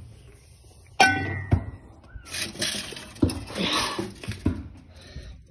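A hard object strikes something with a sharp, ringing clink about a second in. Then come a couple of seconds of scraping and clattering with several knocks, as of tools and clutter being moved about on a concrete floor.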